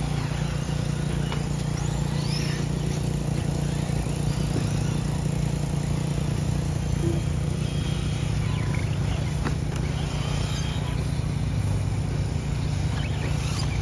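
Electric 1/10-scale short course RC trucks racing on a dirt track, their motors giving faint high whines that rise and fall as they pass. A steady low hum runs underneath and is the loudest sound.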